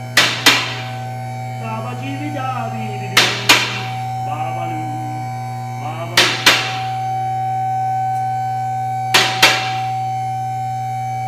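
Vehicle lift raising a pickup truck: its electric pump motor hums steadily, and its safety latches clack in quick pairs about every three seconds as they pass each lock notch.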